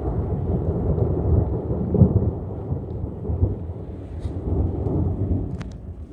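Rolling thunder from a lightning strike: a deep rumble that swells about two seconds in, rolls on in waves and fades near the end.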